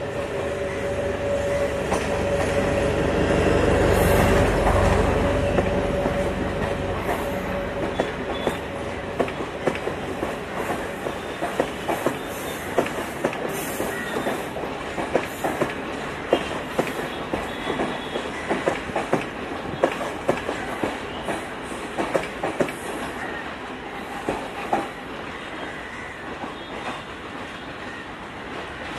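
Sri Lanka Railways class S11 diesel multiple unit passing close by. The leading power car's diesel engine is loudest about four seconds in, with a deep rumble and a steady whine. Then the coaches' wheels click over the rail joints in a long run of sharp clacks that fades as the last car goes by.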